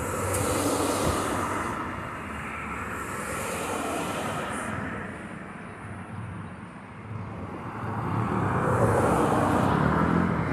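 Two trains running together: a steady rumble and hiss that swells and fades, dips for a moment, then grows louder again.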